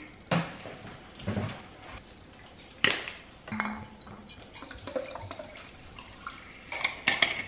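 Water poured from a glass bottle into a plastic drinking bottle, with sharp clicks and knocks of the bottles and caps being handled at the start and again near the end.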